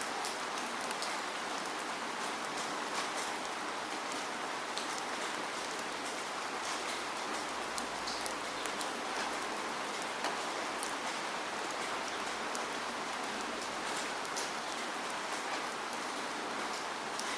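Steady rainfall: an even hiss of rain with many small, sharp drop ticks scattered through it.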